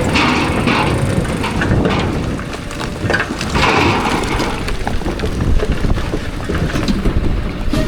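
Cat bulldozer running under load as its blade pushes rock and dirt, with the rumble of the engine and tracks and irregular clatter of rock. A louder noisy surge comes about three and a half seconds in.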